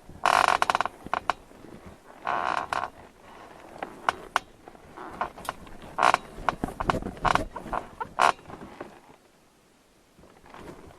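A bed creaking: a run of short, squeaky creaks and clicks from the frame, as if weight is shifting on it. The loudest creaks come right at the start and about two seconds in, with a quieter stretch near the end.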